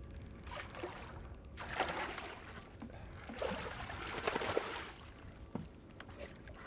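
A hooked speckled trout splashing and thrashing at the surface beside the boat, in noisy surges about two seconds in and again around four seconds in.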